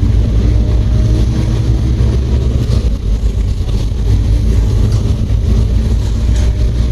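Steady low rumble of a double-decker bus driving, its engine and running gear heard from inside the cabin.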